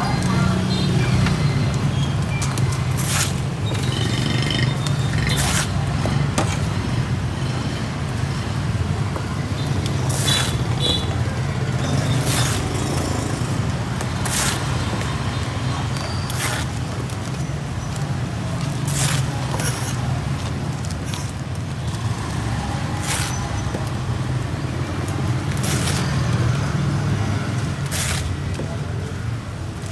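Cleaver chopping roast pork on a chopping block: single sharp chops at irregular intervals of a second or two. Under it is a steady hum of street traffic.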